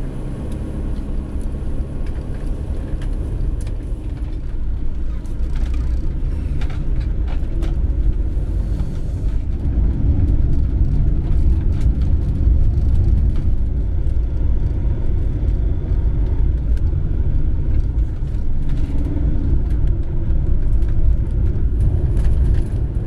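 Motorhome's engine and road noise heard from inside the cab while driving, a steady low rumble that grows somewhat louder over the first ten seconds as it picks up speed.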